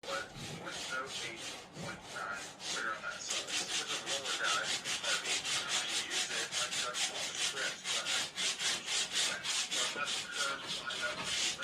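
Rapid back-and-forth strokes of hand abrasion on a wooden panel, rubbing to distress its surface. The strokes are slower at first, then settle into a quicker, steady rhythm of about four a second.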